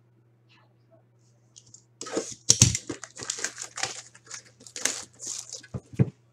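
Plastic shrink wrap being torn and crinkled off a metal trading-card tin, starting about two seconds in, followed by two dull knocks near the end.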